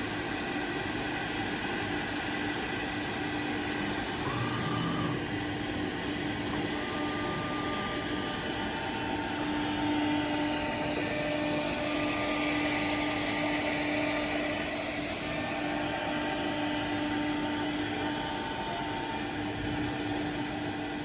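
Two-direction, four-head CNC drilling and milling machine (SMCK 3000-4) running on wood: a steady hum and hiss with one constant tone, and a few higher whining tones that come and go.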